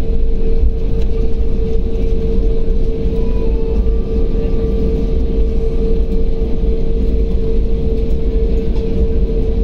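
Airliner cabin noise as an Airbus A320-family jet taxis: a steady engine hum with one constant mid-pitched tone over a heavy low rumble.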